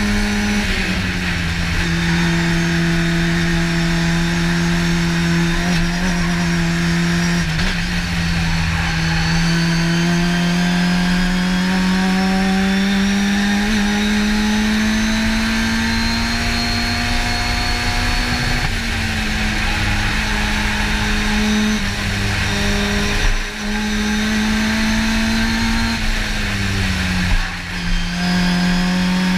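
Race car engine heard from inside the cockpit, running hard under load with its pitch climbing slowly along the straights. About half a second in the note drops, and near the end it briefly dips twice as the throttle lifts and a gear changes.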